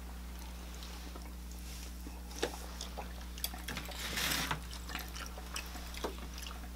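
Quiet mealtime sounds: a few light clicks of forks on plates, and about four seconds in a brief sip or slurp of a drink from a large tumbler, over a low steady hum.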